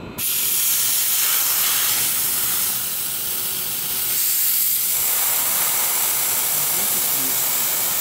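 Compressed test air at about 150 psi hissing out of a car's A/C system through the gauge manifold and hose as a valve is opened, bleeding off the leak-test pressure. The hiss starts suddenly and holds steady.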